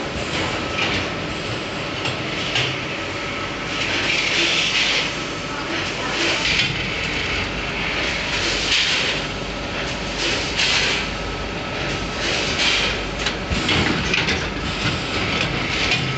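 Automatic stand-up pouch packing machine running: a continuous mechanical rattle with a faint steady whine, and short bursts of hiss about every two seconds as its pouch-handling arms cycle.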